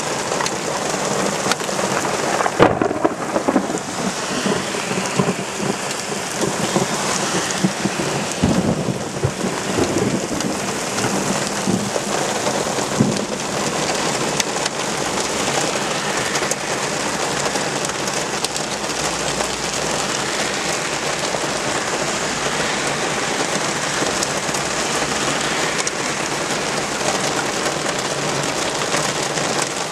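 Heavy rain pouring steadily in a summer heat thunderstorm, with sharp thunder cracks a few times in the first half, the loudest about three seconds in.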